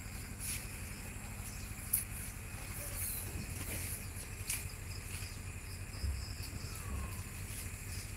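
Insects trilling steadily in the mangroves over the low, steady hum of a boat's engine, with a few sharp clicks.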